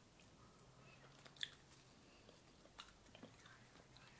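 Faint chewing, with a few soft mouth clicks, of a person eating a sugar-coated mango tamarind candy roll, close to near silence.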